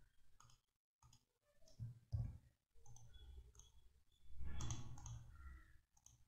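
Faint, scattered computer mouse clicks at the desk, with a louder stretch of noise about four and a half seconds in.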